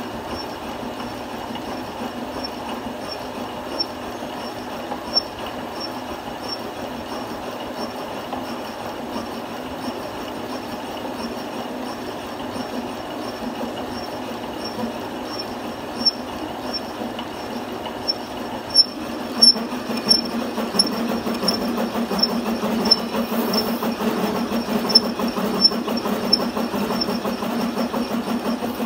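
Metal lathe running while a spinning thread tap hobs teeth into a free-turning gear blank: a steady metal-cutting noise with a light, regular ticking. About two-thirds of the way through it grows louder and harsher, with sharper clicks.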